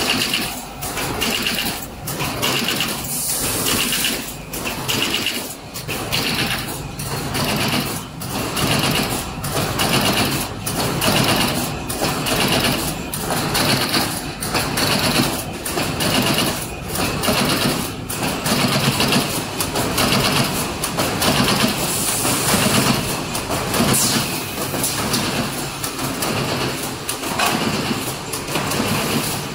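Automatic corrugated-carton stitching machine running: a steady mechanical clatter of belts, rollers and the wire stitching head, beating about once a second as each stitch is driven.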